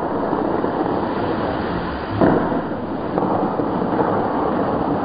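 Tall water jets of the Fountains of Bellagio shooting up and falling back into the lake, a steady rushing noise like heavy rain, with a brief louder surge about two seconds in.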